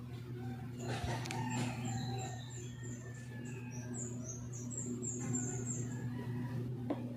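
Birds chirping in the background, with a quick run of high chirps about four seconds in, over a steady low hum.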